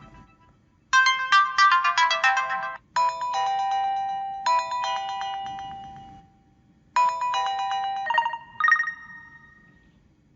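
Built-in ringtones of an HTC HD2 smartphone playing: short electronic melodies of quick chiming notes and held chords. They start about a second in, break off briefly past the middle, and end in bell-like chimes that ring off.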